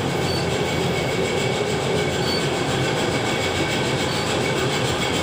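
Kone elevator car travelling in the shaft: a steady rumbling, rattling ride noise with a shaky feel.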